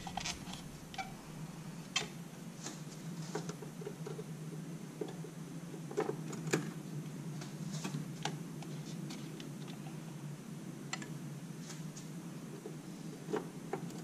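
Scattered light plastic clicks and knocks as a workstation's plastic memory air shroud is unclipped, lifted out and handled over the DIMM slots, the sharpest about 2 s and 6 s in, over a low steady hum.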